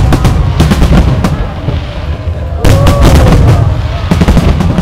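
Aerial fireworks going off in three rapid volleys of sharp bangs and crackles over a constant deep rumble, with crowd voices calling out among them.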